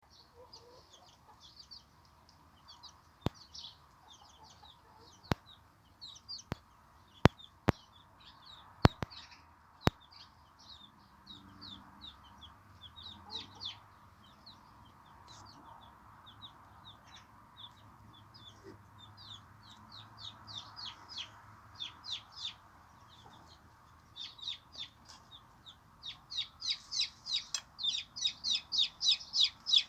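Chicks peeping: a long run of short, high-pitched calls that grows louder and comes in a quick steady series near the end. About seven sharp clicks stand out in the first ten seconds.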